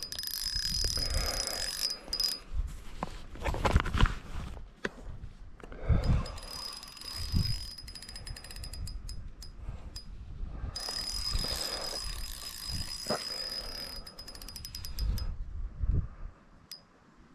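Fishing reel being cranked and its drag clicking in spells while a hooked smallmouth bass pulls line, with a thin high whine in two long stretches and a few low knocks from handling the rod.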